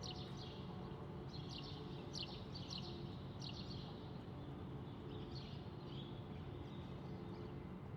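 Small birds chirping, in quick clusters of short falling chirps that thin out in the second half, over a steady low hum of city background.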